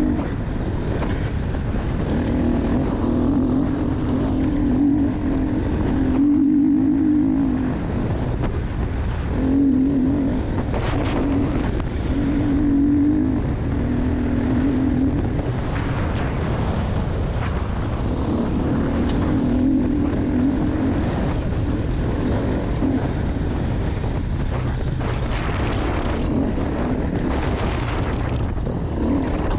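Enduro dirt bike engine running under changing throttle, its note climbing and dropping back again and again, with wind buffeting the microphone.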